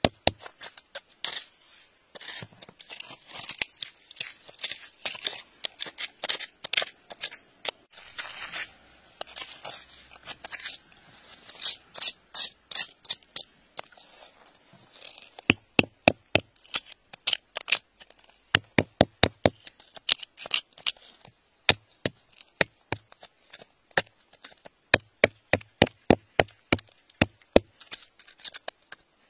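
A metal rod tapping and scraping against wet gravel and rock, giving sharp clicks in quick runs. Over the first half the clicks sit in a rougher scraping sound; in the second half they come as separate crisp clicks, each with a dull thud.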